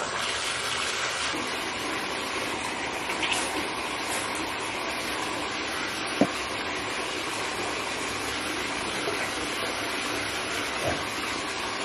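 Water running steadily into a bathtub while a dog is being bathed, with a single sharp click about six seconds in.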